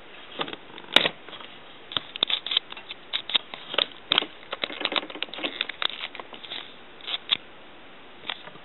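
A run of irregular light clicks and taps, handling noise around the camera and stove setup. The sharpest click comes about a second in, and the clicks are densest through the middle of the stretch.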